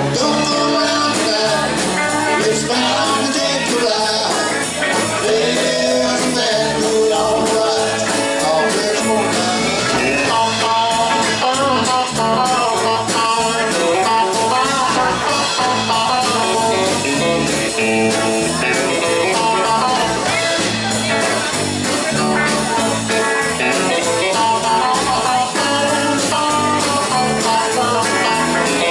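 Live country band playing an instrumental passage: electric guitars, bass guitar and a drum kit keeping a steady beat.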